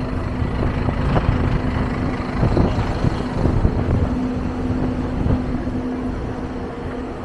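City street ambience: a steady low rumble of traffic with a constant low hum running through it.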